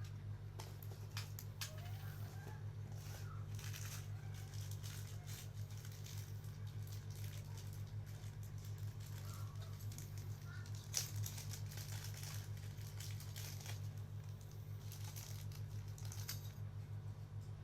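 Packaging crinkling and rustling as a box is unpacked by hand, with scattered clicks and handling noises over a steady low hum.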